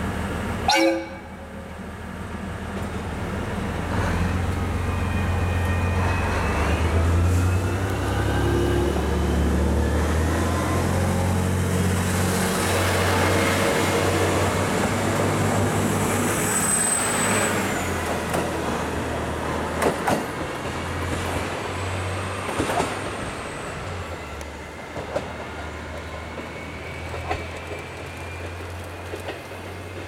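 KiHa E130 series diesel railcar giving a short horn toot, then its diesel engine revving up as it pulls away from the station, with rising whines and a brief high wheel squeal. The engine fades as the railcar draws off, leaving a few clicks of wheels over rail joints.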